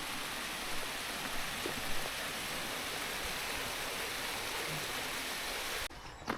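Steady, even rush of running water that cuts off abruptly near the end.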